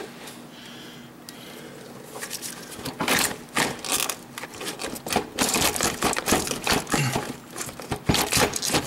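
Hand ratchet wrench clicking in irregular runs, with small metal knocks of the socket, as a bolt under the hood is worked loose. It starts about two and a half seconds in, after a quiet start with a faint steady hum.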